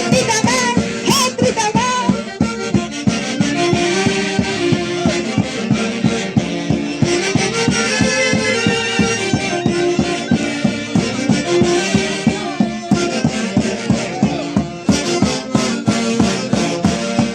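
Music from a folk orchestra: a sustained melody over a steady beat.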